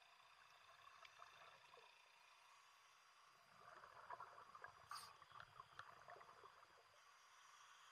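Faint underwater sound of a scuba descent heard through a camera housing: scattered bubbling and crackling from divers' regulator exhaust bubbles, thicker for a few seconds around the middle, with one sharp click.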